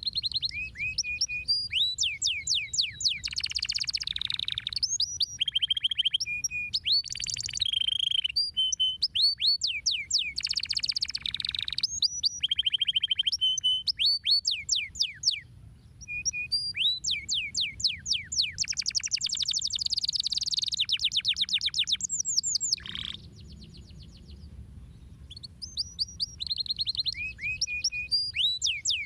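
Domestic canary singing: fast trills of rapidly repeated high notes strung into phrases, with short pauses about halfway through and again after about 23 seconds.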